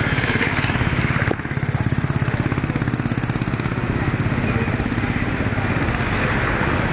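A motor vehicle's engine running steadily with a fast, regular low pulsing, heard from on board. A rushing hiss of air over it thins out about a second in.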